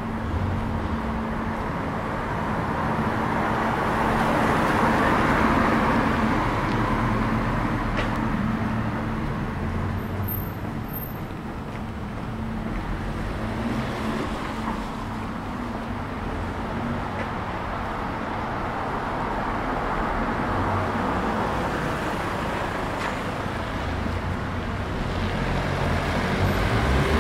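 City street traffic: motor vehicles passing, swelling and fading twice, over a steady low engine hum.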